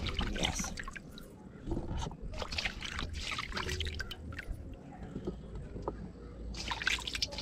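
Water splashing and dripping in a stainless steel basin as a hand scoops washed pumpkin and carrot pieces out, in irregular bursts.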